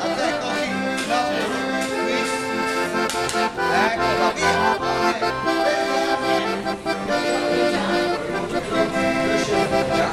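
Background music: an instrumental tune of held, stacked notes that change pitch in steps, in a traditional folk style.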